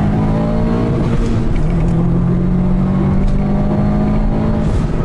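Subaru Impreza WRX STI's turbocharged boxer engine pulling steadily, heard from inside the cabin over road rumble, its drone shifting in pitch about a second and a half in and again near the end.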